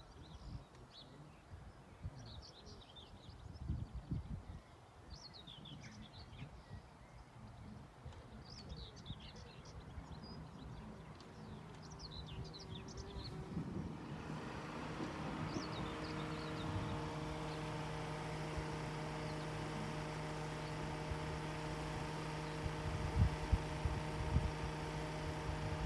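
Small birds chirping faintly over low rumbling gusts. About halfway through, a steady engine hum with several held tones fades in and carries on.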